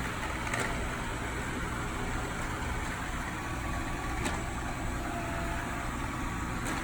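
Kobot RV351 robot vacuum running: a steady motor and brush hum, with a few faint clicks.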